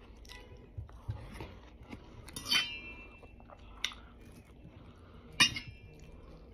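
Fork and knife clinking against a stainless steel bowl while watermelon is cut into pieces. There are three sharp, ringing clinks about a second and a half apart, the first the loudest, among softer taps.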